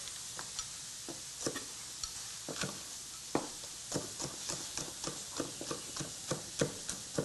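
Chef's knife chopping green onions on a wooden board: a few scattered knocks at first, settling into about three chops a second from about four seconds in.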